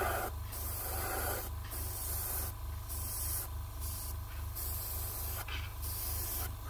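Gravity-feed airbrush spraying paint in short hissing bursts, about one a second, as the trigger is worked to lay freehand streaks. A steady low hum runs underneath.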